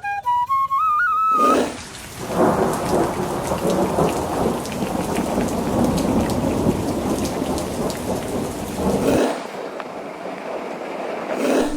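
Heavy rain falling with a low, rolling rumble of thunder. The thunder dies away about two seconds before the end, leaving only the rain.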